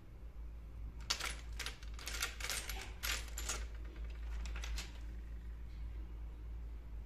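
Miniature ceramic vases and pots clinking against one another as they are picked through in a pile: a quick run of light clinks from about a second in, and a few more shortly before the five-second mark.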